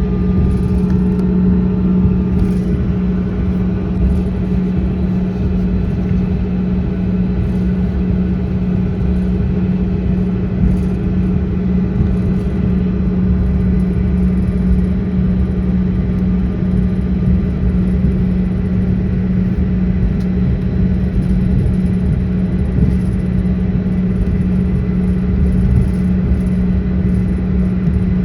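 Steady airliner cabin noise after landing: a constant low hum and rumble from the jet engines and the cabin air system while the plane taxis to the gate.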